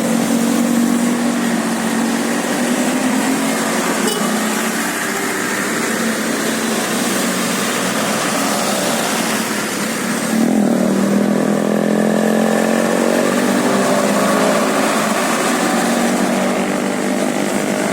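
Tour bus engine running close by, with a steady hum under a noisy wash; about ten seconds in it gets a little louder and rises in pitch.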